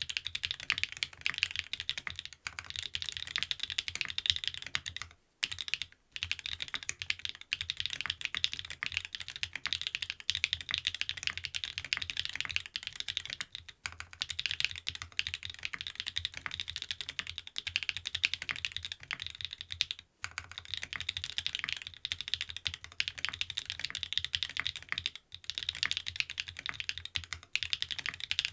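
Continuous fast typing on a TKD Cycle 7 mechanical keyboard with SW x Gateron Deepping switches (stock, unlubed), an aluminium plate and PBT keycaps, with a few brief pauses. It is a dense run of key clacks with the space bar thudding in among them.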